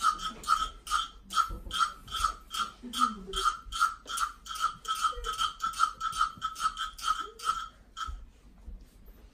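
A small pitched percussion instrument struck in a steady rhythm, about three strikes a second, each with a short clear ring, stopping about eight seconds in.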